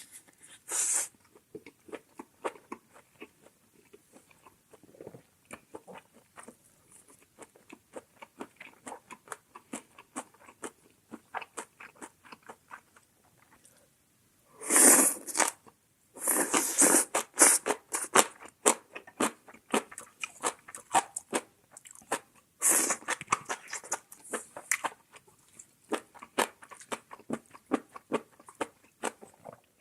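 Close-miked chewing and crunchy biting of food, a steady run of small clicky mouth noises, with louder, longer bursts about halfway through and again a little later.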